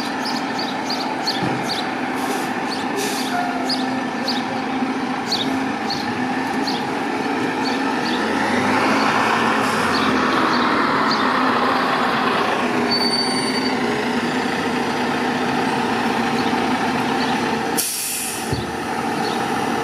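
Diesel engine of a 2014 KME Severe Service pumper fire engine running as the truck pulls out of the firehouse. It grows louder about eight seconds in as it drives out and turns, and there is a short hiss of the air brakes near the end.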